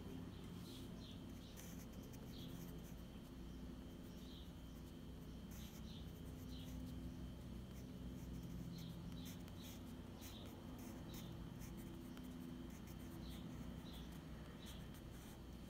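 Pencil scratching on sketchbook paper in short strokes as a signature is written, faint over a steady low hum.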